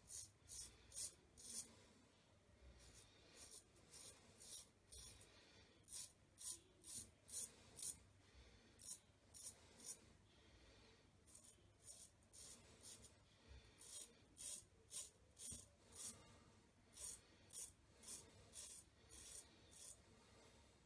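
Custom 7/8 straight razor with an N690 steel blade cutting lathered stubble on the neck, shaving against the grain. Short scraping strokes, about two a second, come in runs of four to seven with brief pauses between.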